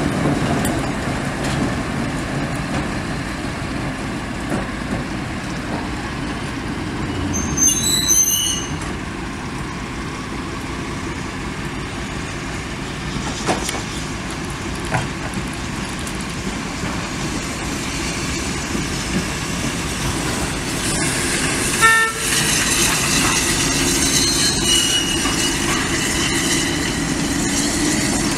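Steam tank locomotive and diesel shunter standing together, with a steady running rumble and hiss. A short whistle toot sounds about 22 seconds in, and the steam hiss grows louder after it as the locomotive gets ready to move off.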